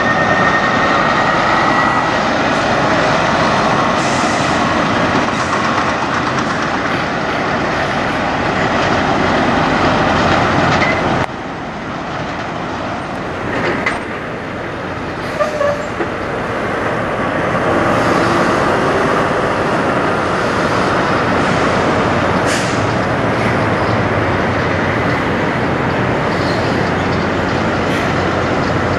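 Semi-trucks running past on the road: steady diesel engine and tyre rumble, close at first, then dropping suddenly about eleven seconds in to a more distant truck and traffic noise.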